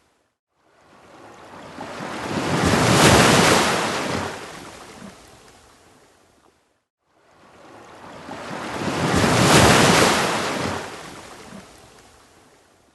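Ocean waves washing onto a beach: two surges, each swelling to a loud rush and then receding over about six seconds, with a brief silence between them about halfway through.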